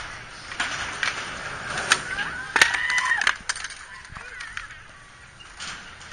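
Skateboards rolling and clacking at a skatepark, with several sharp board impacts in the first half, the loudest about two and a half seconds in. Around two to three seconds in, a few short calls rise and fall in pitch over the skating noise.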